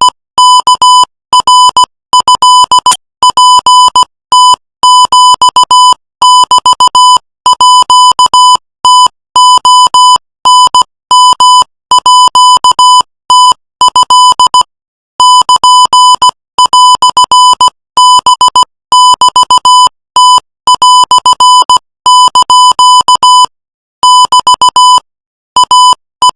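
Morse code sent at 18 words per minute: a single steady-pitched beep keyed on and off in short dots and longer dashes, in groups separated by brief pauses.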